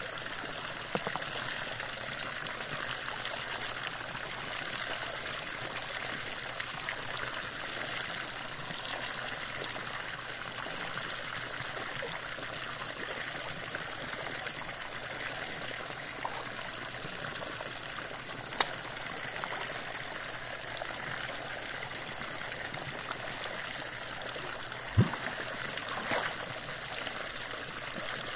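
A jet of water pouring into a pool, splashing steadily onto the surface. There is a brief knock about two-thirds of the way in and a louder, deeper knock near the end.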